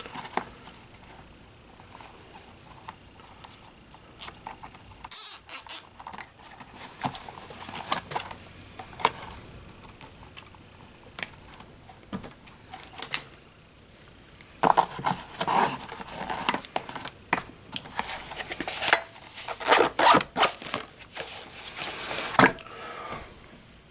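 Small hand tools and a fabric tool pouch being handled as the kit is packed away: scattered clicks, knocks and rustling, with a louder sharp rasp about five seconds in.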